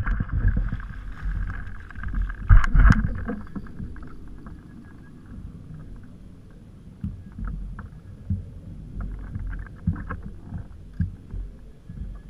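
A hooked sawfish thrashing at the surface beside a kayak, with loud splashes about two to three seconds in. After that, water lapping at the kayak hull with a low rumble and scattered light knocks.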